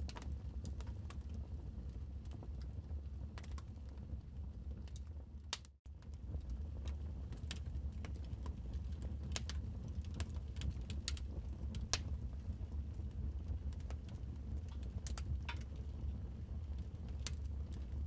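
Wood fire crackling, with irregular sharp pops and snaps over a low, steady rumble. The sound cuts out for a split second about six seconds in.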